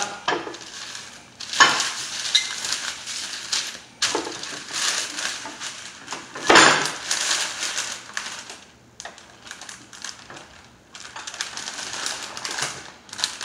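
Parchment paper rustling and crinkling as it is handled, with a plastic tortilla press clattering and knocking against a wooden table; two sharp knocks stand out, about one and a half and six and a half seconds in.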